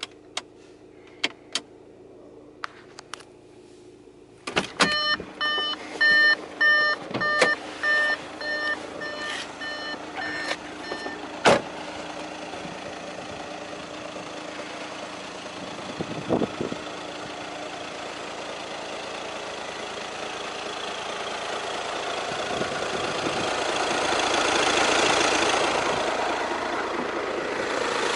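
A few clicks inside a car cabin, then a run of about ten evenly spaced electronic warning beeps from the car. A single sharp knock, a car door shutting, follows about halfway through, and then a steady outdoor hiss swells near the end.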